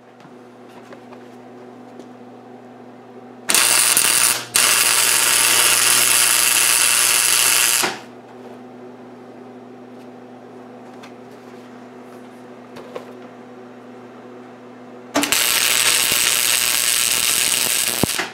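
MIG welder welding a thin sheet-steel guard: two runs of loud arc crackle, the first about four seconds long with a short break near its start, the second about three seconds near the end. A steady hum sounds between the welds.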